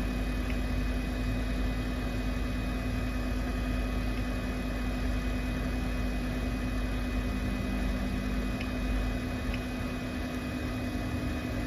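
Steady electrical-machine hum of a BGA rework station running, with a few faint short clicks from its control-panel buttons being pressed to set the temperature profile.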